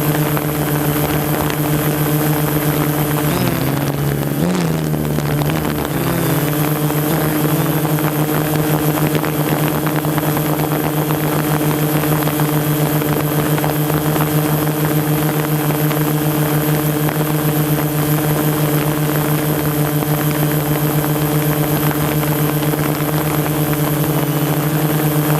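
Quadcopter drone's propellers and motors whining steadily, their pitch wavering and shifting about four seconds in as the motors change speed, then holding steady again.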